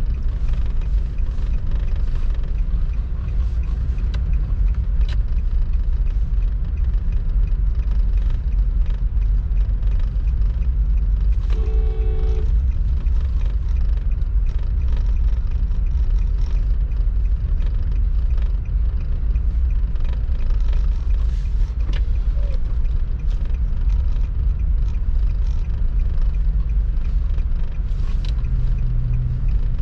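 Steady low rumble of a car being driven, heard from inside the cabin. A short pitched tone sounds about twelve seconds in.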